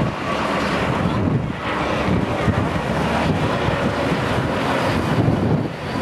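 Jet airliner engines running at take-off power, a loud, steady rushing rumble with a faint whine, mixed with wind buffeting the microphone.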